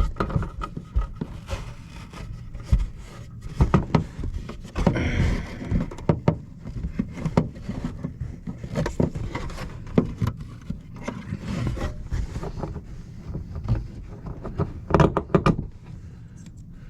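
Irregular clicks, knocks and scrapes of the third brake light's mounting brackets being handled, over a steady low rumble.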